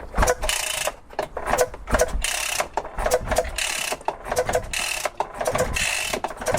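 Atlas Copco Cobra two-stroke breaker engine being turned over by its starter in a series of short strokes without firing, during a spark test on the non-running machine.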